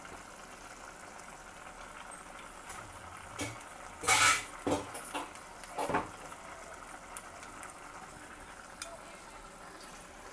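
A metal spoon clinking against a metal pan and bowl as chilli powder is spooned into simmering chickpea masala: a handful of sharp knocks about three to six seconds in, the loudest around four seconds. A steady low sizzle from the pan lies underneath.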